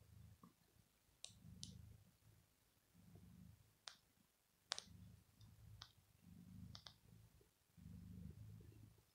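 Domestic tabby cat purring softly close to the microphone, a low rumble that comes in stretches of about a second with short pauses between breaths. A scatter of faint sharp clicks sounds over it, about eight in all.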